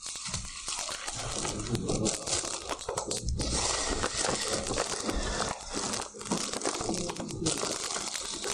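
Crackling and rustling noise on a microphone that is being handled, with dense crunchy crackle that cuts out for a moment twice.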